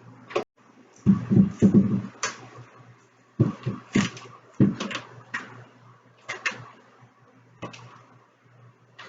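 Irregular knocks, taps and thuds of hands handling and setting pieces on the nightstand, heaviest about a second in, over a steady low hum.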